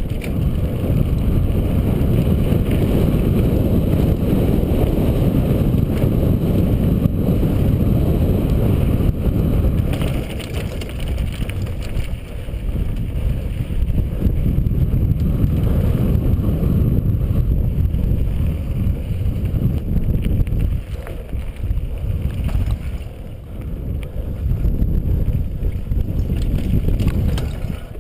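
Wind buffeting a helmet-mounted camera's microphone during a fast downhill mountain-bike descent, with the tyres running over dry dirt. The deep rumble dips briefly a few times.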